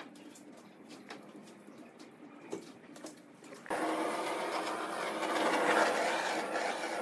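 A few light clicks of handling, then about four seconds in a power tool starts suddenly and runs steadily.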